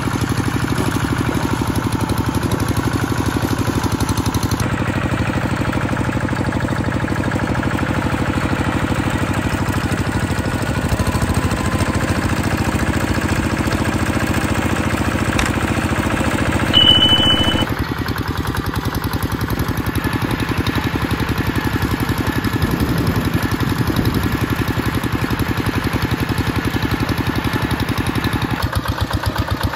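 Small vehicle engine running steadily while driving along a rough dirt track, with a continuous pulsing engine note. About 17 seconds in, a short high-pitched tone sounds briefly over it.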